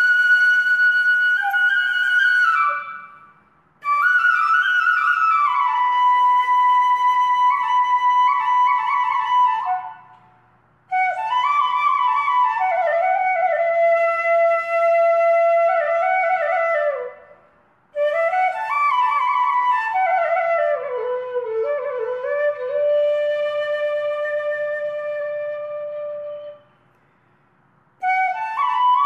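Background music: a solo flute playing a slow melody in long phrases, with short pauses between them and some notes gliding down in pitch.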